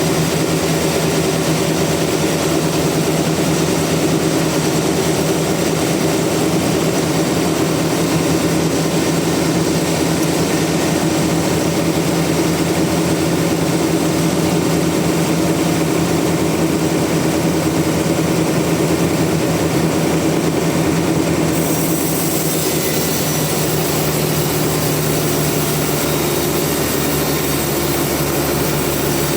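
Sawmill machinery running steadily with a constant-pitch engine-like hum. The higher part of the sound shifts slightly about 22 seconds in.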